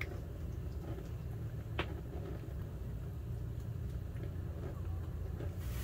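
Steady low hum, with a faint click about two seconds in.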